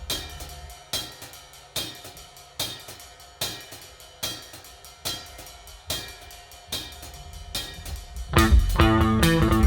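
Band music: a drum kit plays a steady beat of cymbal and drum hits, a little more than one a second. About eight and a half seconds in, bass and guitar come in and the full band plays louder.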